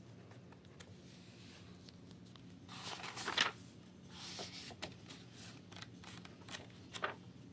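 Pages of a lined paper notebook rustling and flapping as they are turned and handled by hand, loudest about three seconds in, with a few light taps near the end.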